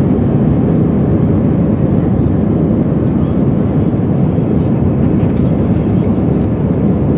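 Airbus A320 jet engines at takeoff power, heard inside the passenger cabin: a loud, steady low rush of engine and airflow noise.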